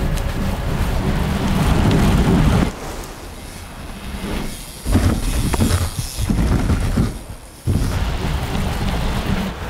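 Downhill mountain bike ridden fast on pavement: a deep rumble of tyres and wind. It drops away about two and a half seconds in, returns loud about five seconds in with a run of knocks and clatter, dips briefly near the end, then rumbles on.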